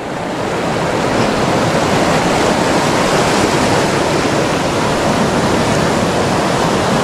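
Shallow rocky river rushing over stones and small rapids, a steady rush of water.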